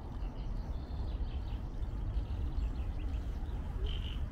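Wind buffeting the microphone with a low rumble, with birds chirping faintly over it and one clearer chirp near the end.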